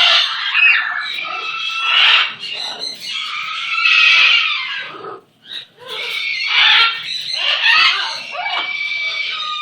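A pet parrot vocalizing: a continuous run of chattering, squeaky calls, with a short break about five seconds in.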